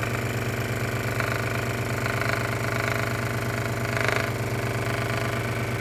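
Wen scroll saw running, its blade reciprocating with a steady, fast buzzing hum while it cuts a pine board, the rasp of the blade in the wood swelling now and then.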